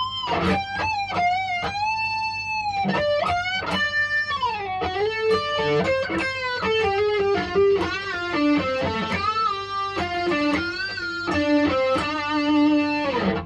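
Electric guitar playing a single-note lead solo line full of string bends and vibrato. The phrase steps downward through quick notes and ends on a long held, wavering note that stops suddenly near the end.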